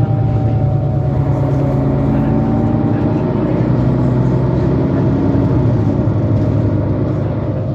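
Mercedes-Benz Citaro C2 city bus's Euro 5 diesel engine running steadily while the bus drives, a low drone with a faint whine above it that drifts slowly in pitch.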